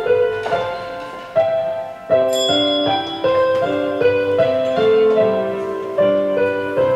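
Piano playing a simple melody, one note after another, each note ringing on into the next.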